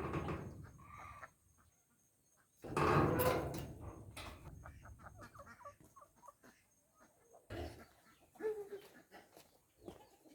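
Chickens clucking now and then, with a loud burst of noise about three seconds in and scattered knocks and clicks.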